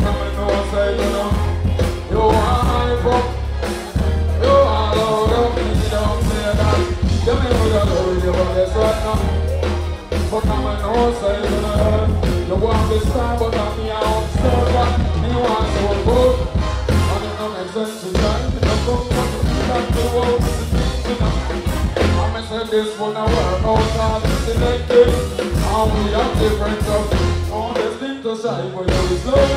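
Live band music with a male vocalist singing into a microphone over a concert PA, with a heavy bass line that drops out briefly twice in the second half.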